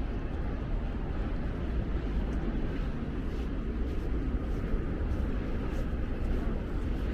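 Steady low rumbling outdoor noise: wind buffeting the microphone over a background of distant city noise.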